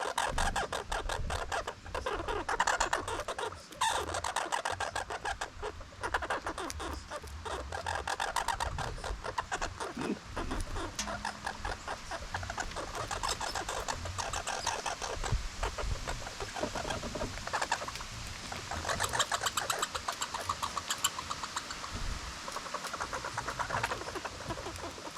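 Squirrels chattering: fast, dense runs of clicking calls that keep going with little pause.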